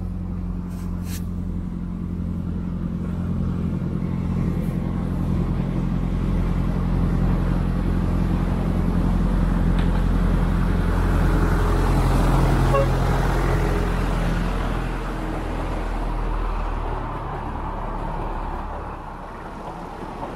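A miniature railway's diesel-outline locomotive runs past with its engine humming steadily, along with the rumble of its wheels on the rails. The sound grows louder as the train approaches, is loudest about twelve seconds in, then fades as it moves away.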